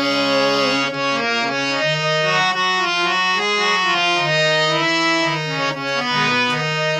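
Harmonium playing the instrumental interlude of a kajari folk song, a melody of held reedy notes changing step by step.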